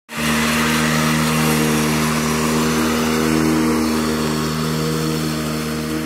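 Lesco walk-behind commercial mower's engine running steadily with the blades engaged, cutting grass. A loud, even drone that holds one pitch throughout, over a hiss from the deck.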